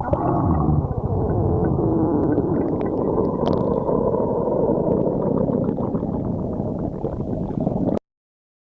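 A person's stomach growling: a long, unbroken gurgling rumble that shifts in pitch and cuts off suddenly about eight seconds in.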